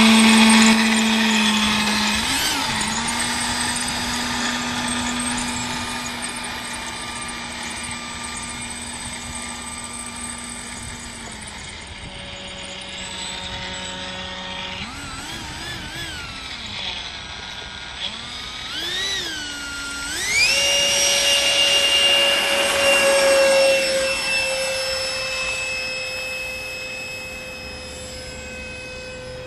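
Electric ducted fan of an RC Harrier jet model, whining at a steady low pitch at first, then blipped up and down in short throttle swoops. A little past two-thirds through it rises steeply to a high steady whine at full throttle for takeoff, fading slowly as the plane climbs away.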